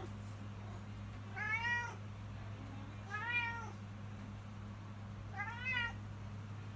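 Domestic cat meowing three times, roughly two seconds apart, each call rising then falling in pitch: a cat begging for food.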